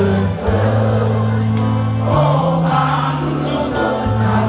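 Live band playing amplified music with held bass notes, and a large crowd singing along.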